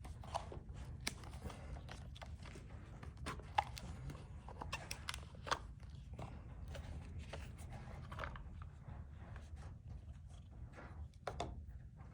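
Sealed trading-card box being cut open and handled: irregular clicks, crinkles and rustles of tape seals, plastic and cardboard packaging.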